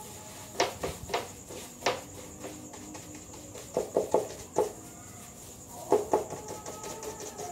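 Chickens clucking: scattered short clucks, some single and some in quick runs of two or three.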